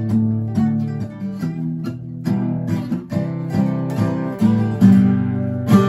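Acoustic guitar strumming and picking chords, each chord ringing out before the next.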